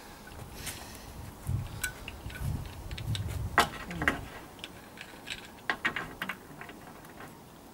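Scattered clicks and light knocks from handling a tile cutter and a large thin porcelain tile while working to snap it. There are a few low thuds a second or two in, and the sharpest clicks fall in the middle and a little past it.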